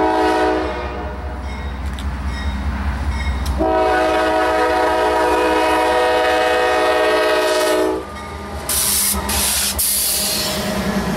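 CSX diesel locomotive horn sounding at a grade crossing: a blast that ends about half a second in, then one long blast of about four seconds. After it the light engines pass close by, with a loud rushing noise and the low drone of their diesel engines near the end.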